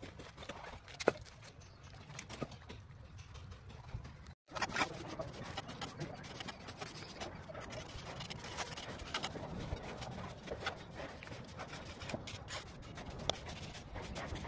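Steel trowel scraping and tapping on wet cement plaster, drawn along a wooden straight-edge to cut groove lines in a wall: a dense run of small scrapes and clicks. Before it the sound cuts out briefly about four seconds in, and the stretch before that is faint background with one sharp click about a second in.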